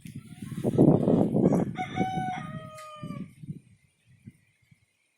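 Ayam Cemani rooster crowing once, the call ending in a long, slightly falling note that fades about three seconds in. Before it, gusts of wind buffet the microphone and are the loudest thing heard.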